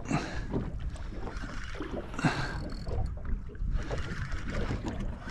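Sea water washing and slapping against the hull of a small boat, swelling twice (at the start and about two seconds in), over a low wind rumble.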